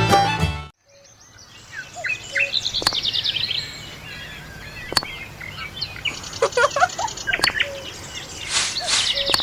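Several birds chirping and singing: quick high trills and repeated notes, with two sharp clicks about three and five seconds in.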